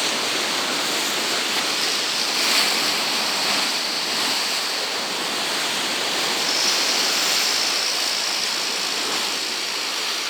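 Heavy surf of a stormy sea, waves breaking in a continuous rush of churning water that swells slightly about two and a half seconds in.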